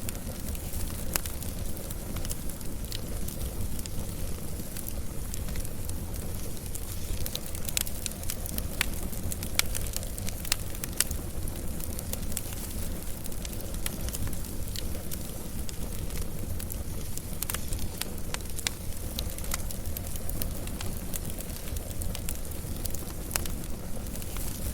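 Wood fire crackling: a steady low rumble of burning with frequent sharp, irregular pops.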